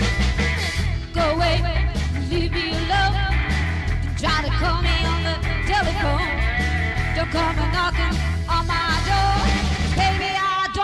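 A song with a woman's voice singing over guitar and a steady bass line; the bass drops out near the end.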